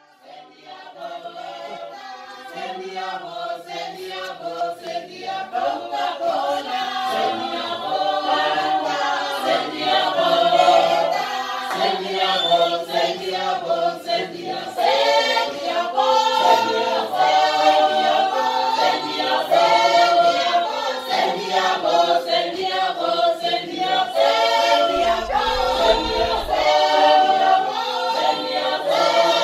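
Background music: a choir singing, fading in over the first few seconds.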